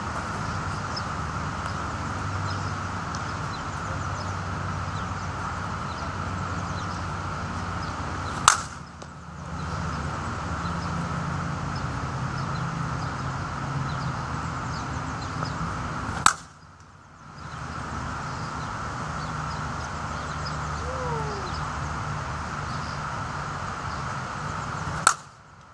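Slowpitch softball bat hitting pitched balls: three sharp cracks about eight seconds apart, over steady background noise.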